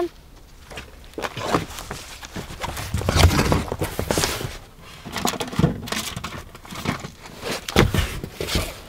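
Irregular scuffs and knocks of hands and knees on cardboard as a child crawls about inside a cardboard box fort.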